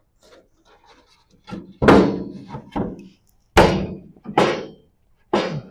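Wooden toe board being knocked into place inside a steel car body: a series of about six heavy thunks, the loudest about two seconds in and another about three and a half seconds in. The board is a tight fit.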